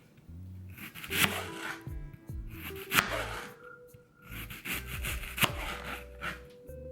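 A knife slicing a red onion into thin strips on a cutting board: a few separate, sharp cutting strokes about one to two seconds apart, over background music.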